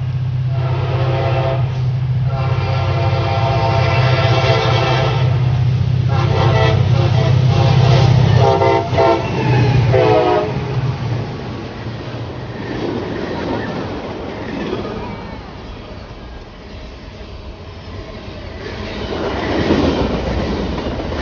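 Freight train led by two SD40-3 diesel locomotives passing at speed, the engines working hard under load with a low drone. The air horn sounds in long blasts for about the first ten seconds, and the horn and engine drone fall away as the locomotives go by. The freight cars then roll past with a steady rumble and rail clatter.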